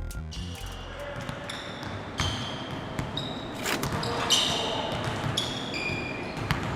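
Basketball practice in a gym: sneakers squeaking sharply on the hardwood court about every second, with balls bouncing against the echoing hubbub of the hall.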